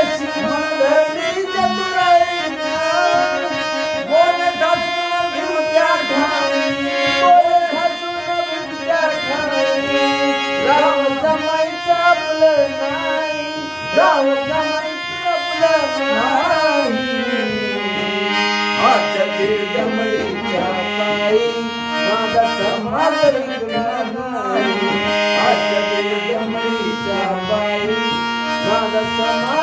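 Harmonium played as a song accompaniment, a man singing over it for roughly the first half; from a little past halfway the harmonium carries the melody alone in held, stepping notes.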